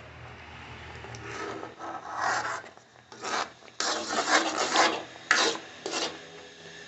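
A ladle scraping against an iron kadai in repeated, uneven strokes as thick beetroot and sugar paste with nut powder is stirred. The paste has cooked down until its water is gone.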